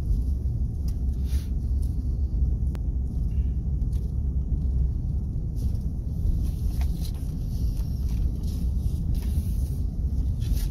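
Steady low rumble of a car driving, heard from inside the cabin: engine and tyre noise on the road, with a few faint light ticks.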